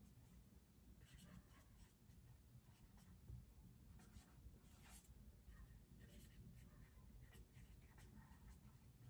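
Faint scratching of a pen on paper: handwriting in short, irregular strokes.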